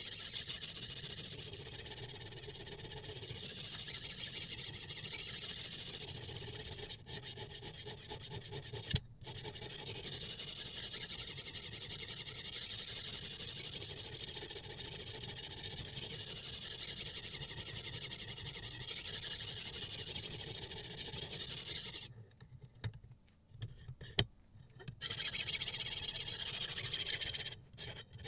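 Sharpening stone on the guide rod of a Sytools Beast sharpening system rubbing along the edge of a clamped steel chef's knife in continuous strokes, a high, raspy scraping. It breaks off briefly about nine seconds in, stops for about three seconds near the end, then resumes.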